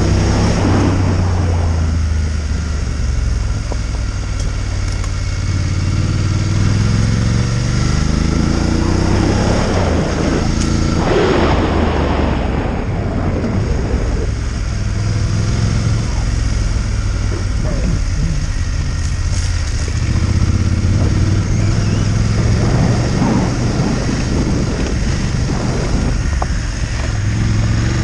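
Adventure motorcycle engine running in second gear on a gravel track, its pitch rising and falling with the throttle, with wind rushing over the microphone. The wind swells briefly about eleven seconds in.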